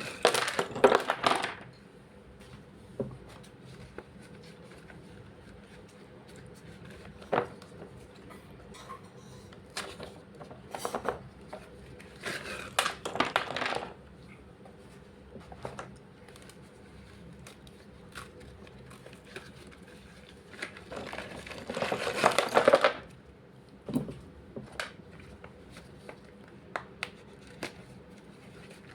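Slate pencils being handled: scattered sharp clicks and taps as they knock together, with three longer scraping bursts, the loudest about three quarters of the way through.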